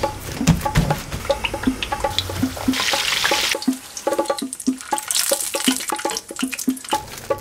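Background music of short plucked notes, with a burst of sizzling hiss about three seconds in from eggplant pieces deep-frying in hot oil, and a fainter sizzle later on.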